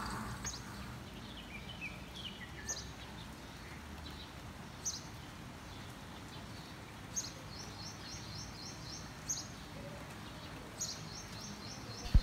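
Birds calling outdoors: scattered short high chirps, a few quick descending notes, and twice a rapid run of about half a dozen repeated notes, over a faint steady background hiss.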